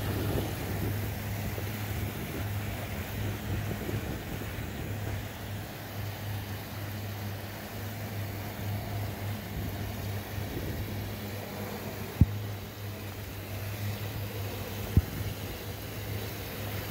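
Outdoor waterside ambience: a steady low hum under an even wash of noise, with two brief sharp thumps, the first about twelve seconds in and the second about three seconds later.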